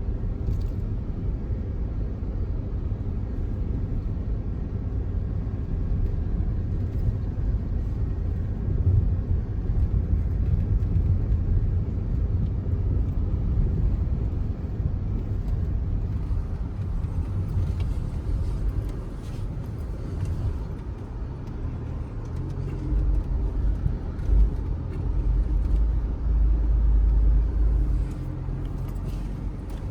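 Audi Q5 driving, a steady low rumble of engine and tyres with a few light knocks; the rumble grows heavier for several seconds near the end.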